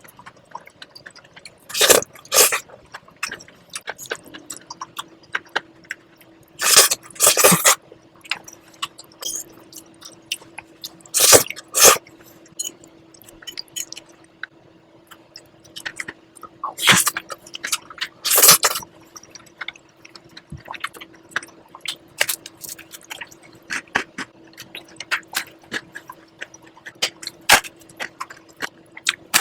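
Close-miked eating of cream-sauce spaghetti: wet chewing and lip-smacking clicks throughout, with louder noisy mouth sounds, mostly in pairs, every few seconds. A faint steady hum comes in about four seconds in.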